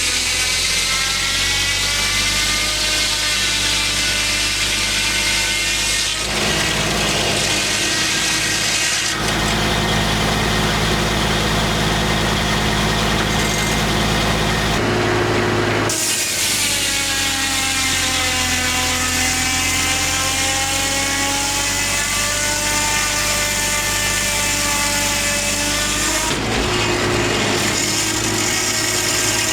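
Homemade circular sawmill cutting a large white pine log: the blade's whine sags in pitch under load and recovers, twice, over the steady drone of the power unit.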